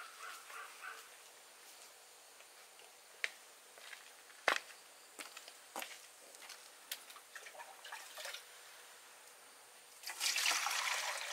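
A few scattered sharp knocks and clicks, then, about ten seconds in, water being scooped from a concrete water tank and poured and splashed.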